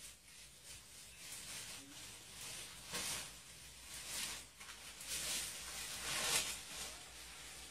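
Leaves and branches rustling in irregular bursts as a Sri Lankan elephant pushes against a tree and rears up on its trunk, loudest about six seconds in.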